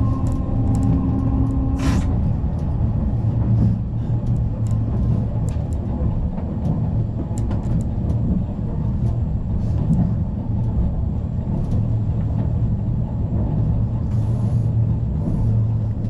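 Sapporo streetcar running: a steady low rumble from the moving tram, with scattered light clicks and rattles. About two seconds in, a steady tone cuts off with a sharp click.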